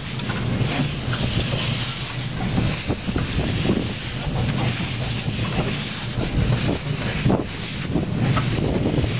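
Small 12¼-inch-gauge steam locomotive, a Darjeeling-style saddle tank, hissing steam steadily with soft irregular chuffs as it hauls carriages slowly round a curve; steam escapes low at the front, from the cylinder drain cocks.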